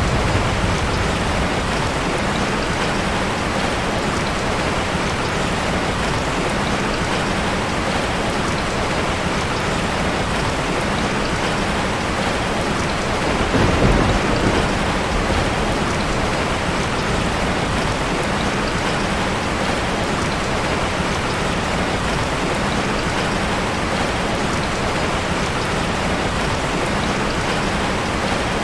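Heavy rain falling steadily as a dense, even hiss. There is a brief swell of thunder rumble about halfway through.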